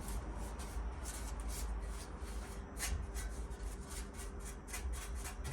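Quick repeated rubbing strokes, about three or four a second, over a steady low hum.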